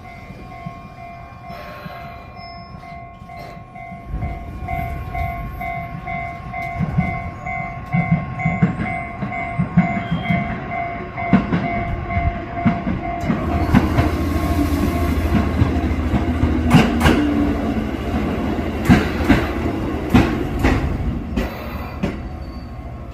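A Japanese level-crossing warning bell rings in even two-tone pulses, about two a second, while a 205 series electric train comes into the station. The bell stops about 13 seconds in. The train's low running hum and its wheels clacking over rail joints then take over.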